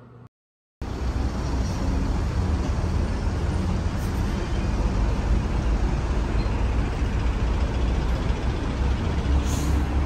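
City street noise: a steady deep rumble of road traffic cuts in just under a second in, with a short hiss near the end.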